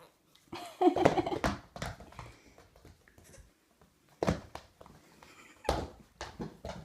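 An animal's loud, pitched cry about a second in, then a few sharp knocks.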